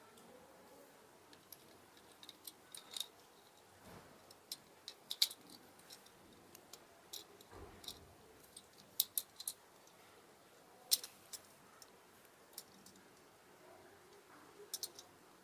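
Irregular light metallic clicks and taps as a pair of bicycle brake levers is handled, the aluminium levers and their fittings knocking against each other, with a couple of soft dull knocks along the way.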